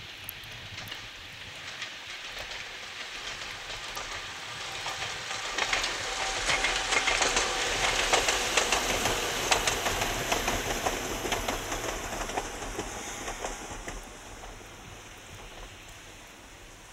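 Ohmi Railway two-car electric train passing: the rumble of its wheels grows as it approaches, with the clicks of the wheels over rail joints loudest from about six to twelve seconds in, then fades as it moves away.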